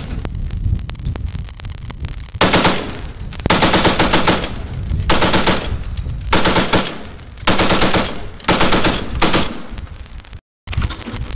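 M2 .50-calibre heavy machine gun firing short bursts, about six of them, each under a second long, starting a couple of seconds in. Before the first burst there is a low rumble.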